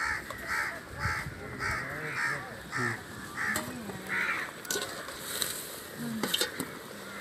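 A crow cawing repeatedly, about two caws a second, stopping about four seconds in. A few sharp clicks follow in the second half.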